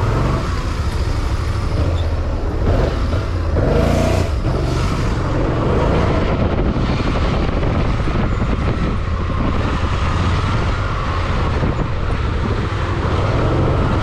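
BMW motorcycle running in city traffic, heard from the pillion seat, with a steady heavy low rumble throughout.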